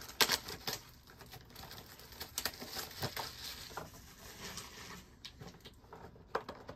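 Light handling noises of trading-card packaging: scattered crinkles, rustles and small taps, with a sharper tap just after the start.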